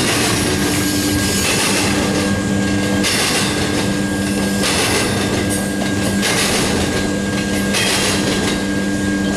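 Double-stack intermodal container well cars rolling past at close range, wheels clattering on the rails with a surge of noise about every second and a half. A steady low hum runs underneath.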